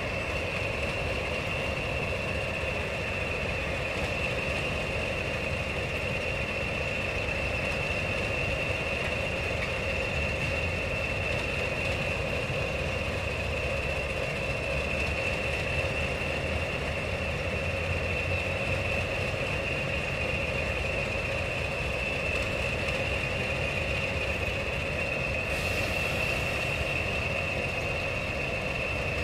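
A pair of BR Class 20 diesel locomotives idling at a standstill: a steady low engine rumble with a steady high whistle over it. A short hiss comes in near the end.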